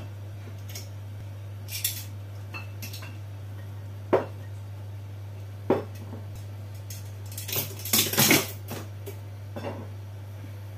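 Dishes and cutlery clinking and knocking: scattered single clinks, with a short burst of clattering about eight seconds in.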